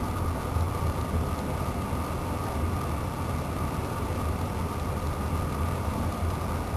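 Train running along the track, heard from inside the carriage: a steady low rumble of the wheels on the rails with a faint steady tone above it.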